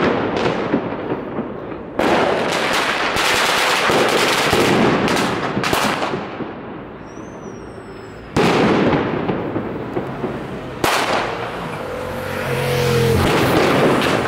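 Fireworks set off on the ground, spraying sparks: four sudden loud bursts, each followed by a few seconds of hissing, crackling spray, with rapid sharp pops running between the first two.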